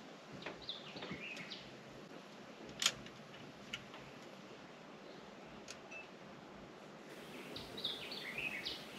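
Songbird chirping in two short bursts of quick, up-and-down phrases, over a steady low hiss. In between there are three sharp clicks, the loudest about three seconds in.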